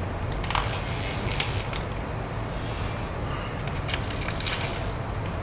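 Crinkling and clicking of a disposable plastic takeout food container and its lid being handled and opened, in several short bursts, over a steady low hum.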